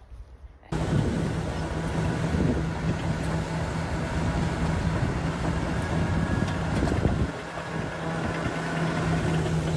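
A motor engine running steadily with a constant low hum, which eases off for about a second around seven seconds in.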